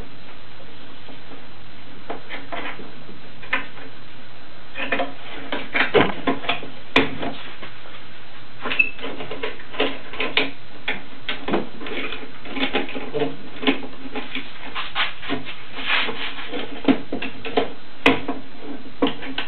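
Steel bar clamps being adjusted and tightened on a glued wooden window frame to close its corner joints: irregular metal clicks, taps and rubbing, sparse at first and much more frequent from about five seconds in, over a steady background hiss.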